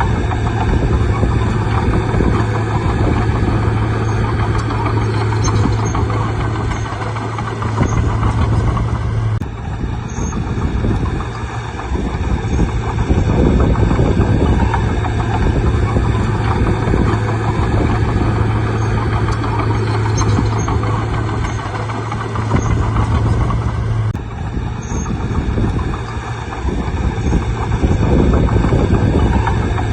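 Bulldozer's diesel engine running steadily with a strong low hum. The sound changes abruptly twice, about nine seconds in and again near the end.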